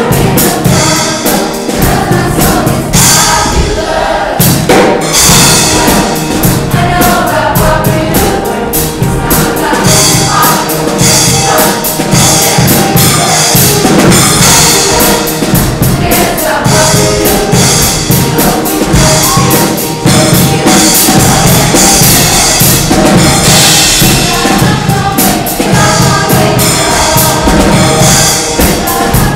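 A show choir singing in chorus over an accompaniment with a drum kit keeping a steady beat.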